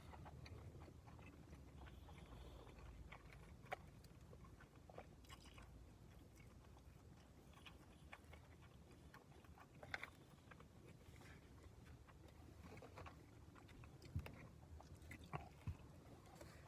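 Quiet chewing and mouth sounds of a man eating a beef-bowl (gyudon) bento, with a few sharp clicks spread through, over a low steady hum.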